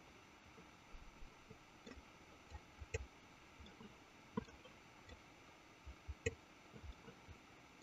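Near silence with a few scattered faint clicks from a computer mouse.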